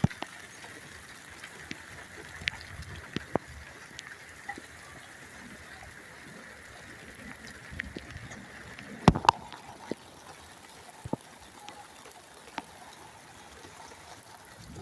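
Steady rain with water trickling, and scattered sharp taps of raindrops landing close to the microphone, with one loud knock about nine seconds in.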